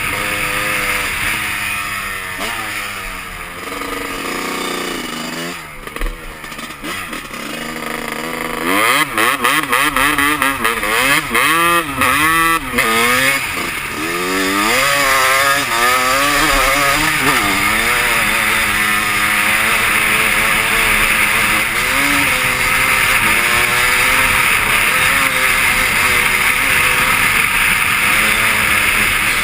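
Honda CR250 two-stroke dirt bike engine being ridden, its pitch rising and falling with the throttle. About a third of the way in it revs up and down sharply several times in quick succession, then settles into steadier running over a constant hiss.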